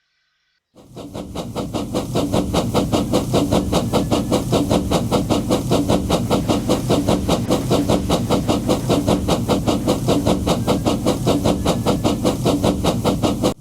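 A loud, fast, evenly repeating pulsing sound like a running engine, starting suddenly about a second in.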